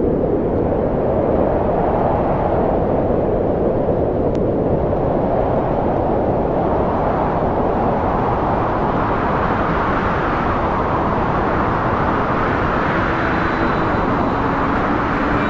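A loud, steady rushing rumble with no tones, swelling and easing slowly every few seconds, like wind or a distant jet.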